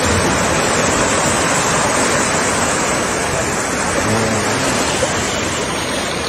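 Floodwater rushing fast across a flooded street: a loud, steady rushing noise.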